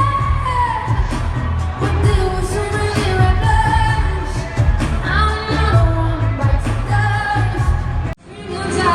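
Loud pop music with a singer over a heavy bass beat. Just after eight seconds in the sound cuts out abruptly for a moment and comes back duller, with the high end missing.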